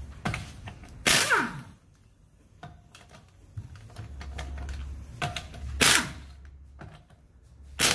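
Impact wrench loosening a car's wheel lug nuts: a short burst of hammering about a second in that winds down with a falling whine, a briefer burst near six seconds and another near the end, with light clicks of the socket and nuts between.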